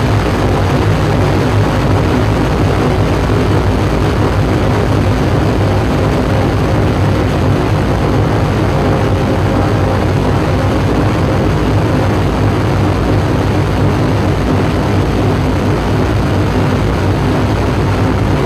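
Live electronic noise performance played through PA speakers: a loud, dense, steady wall of noise over a deep drone, with several held low tones.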